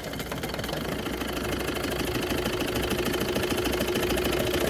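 Turbocharged PAZ bus diesel engine on a test stand firing up and running, the fast even firing strokes getting slowly louder. The engine has developed a heavy knock.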